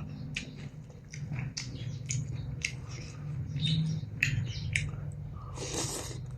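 Close-miked chewing with wet mouth-smacking clicks, several a second, over a low steady hum. A longer noisy sound comes near the end.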